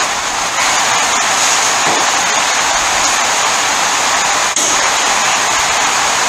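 Steady loud hiss, with a brief dip about four and a half seconds in.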